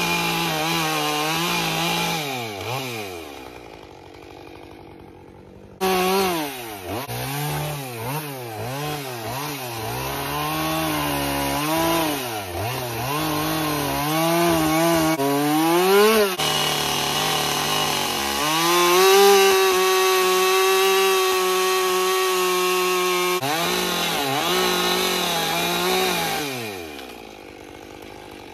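Gas chainsaw carving into a log, its engine revving up and down over and over as the cuts are made. It drops low a few seconds in, comes back sharply, and holds a steady high pitch for several seconds in the middle. Near the end it falls back toward idle.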